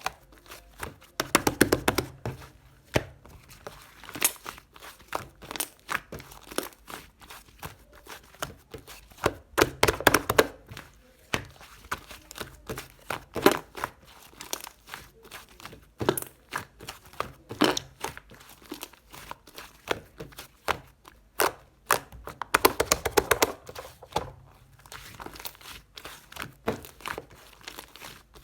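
White slime being squished and poked by hand, giving a constant run of sticky clicks and crackles. Denser bursts come about 2, 10 and 23 seconds in.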